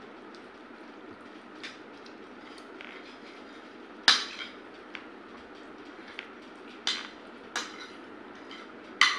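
Metal spoons clinking and scraping on ceramic plates while eating, a scatter of sharp clinks, the loudest about four seconds in and another near the end.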